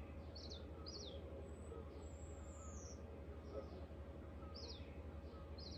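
Birds calling: short, high chirps that drop in pitch, repeated several times, with one longer downward-sliding whistle about two seconds in, over a faint steady low hum.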